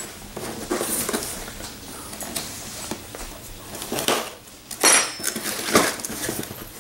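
A flat blade scraping along the seams of a cardboard box to cut it open, then the lid lifted, with cardboard rustling and several sharp clicks and knocks, the loudest about five seconds in.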